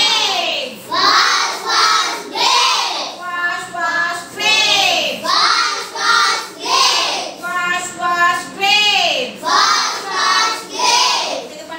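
A class of young children singing together in unison, in short regular phrases of about a second each.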